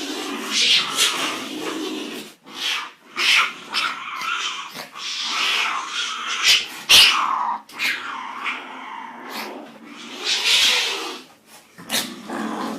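Cats growling and calling, a string of short, varied cries with brief gaps between them.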